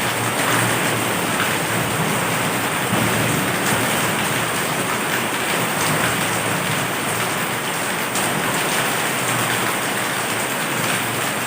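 Heavy rain falling steadily: a dense, even hiss of many drops.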